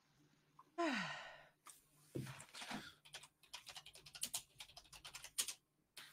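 A loud falling sigh about a second in, then rapid computer keyboard typing, quick sharp key clicks, from about two seconds in.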